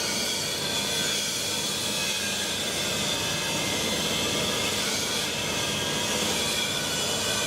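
Kao Ming KMC 2000SV CNC gantry milling machine running: a steady mechanical whir and hiss with a few faint high steady tones.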